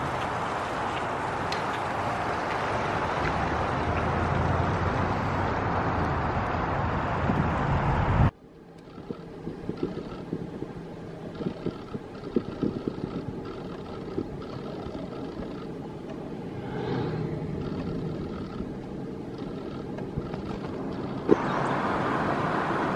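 Wind noise on the microphone for about the first eight seconds, then an abrupt cut to quieter, steady road noise from inside a moving car, with scattered small clicks and knocks.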